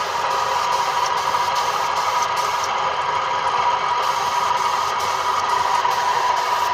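Gravity-feed air spray gun hissing steadily as it sprays silver enamel base coat, with a steady whistling tone through the hiss.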